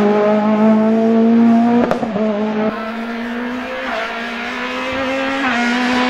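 Racing car engine at high revs, held near steady and climbing slightly, with a short break about two seconds in like a gear change. Then a quieter, more distant race car engine revving, rising in pitch and loudness near the end as it comes closer.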